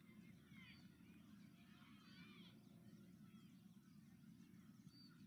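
Near silence: faint open-air field ambience, a low steady rumble with a few faint, high distant calls scattered through it.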